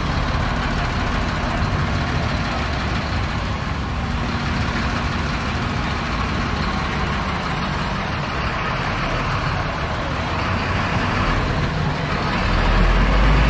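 Outdoor street ambience: a steady low rumble under a wash of general noise, swelling louder near the end.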